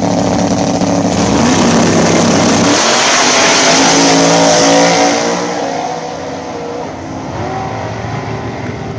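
Two drag-race vehicles, a classic muscle car and a pickup truck, launching side by side. The engines rev hard off the line and climb in pitch through the gears, loudest around four to five seconds in, then fade as they pull away down the track.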